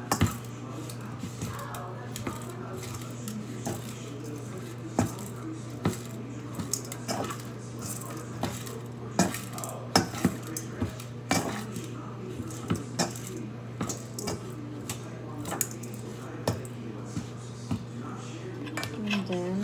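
A utensil clinking and scraping against a stainless steel mixing bowl while cooked rice is stirred and broken up, in irregular knocks, over a steady low hum.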